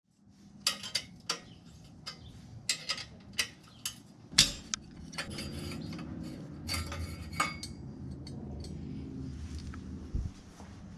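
A series of sharp metallic clicks and clinks, the loudest about four seconds in, then a low steady hum with a few fainter clicks and a dull thump near the end.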